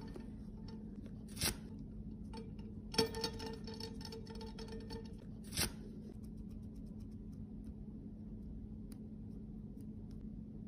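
Metal bracelet and its hinged clasp being handled as it is cleaned: three sharp clicks, about a second and a half, three and five and a half seconds in, over a steady low hum.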